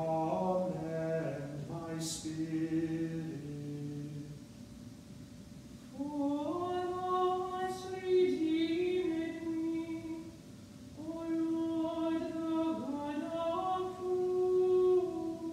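Two cantors singing unaccompanied plainchant in turn: a man's lower voice for the first few seconds, then after a short pause a woman's higher voice in two phrases.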